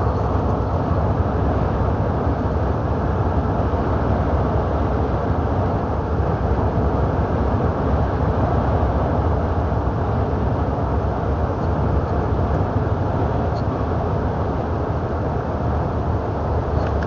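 Steady engine and road noise inside a moving truck's cab, a constant low rumble with no change in pace.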